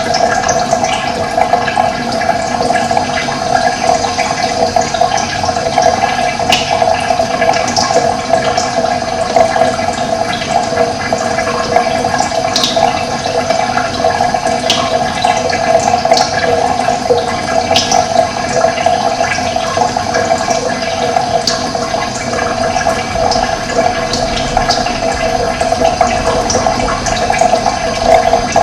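Steady rush of running water, with short high bird chirps scattered over it.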